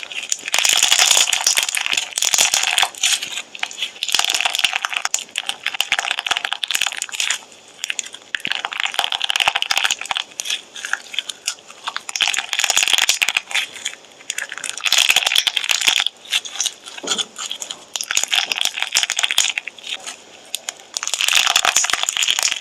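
Slime being squeezed and pressed by hand, giving crackly, crunching sounds in repeated bursts of a second or two with short pauses between.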